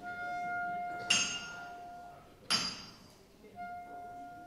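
Hammer strikes on a farrier's anvil: metal struck at the start and again near the end, each ringing on with a clear held tone, and two sharper, brighter clanks about one and two and a half seconds in.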